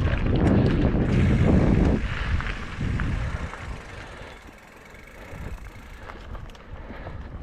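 Mountain bike rolling along a dirt trail: a loud low rumble of tyres and wind for the first two seconds, then quieter riding with scattered clicks and rattles.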